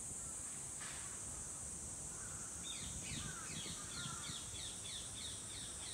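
A bird calling a quick run of short falling notes, about four a second, starting a little after halfway through, over a steady high-pitched insect drone.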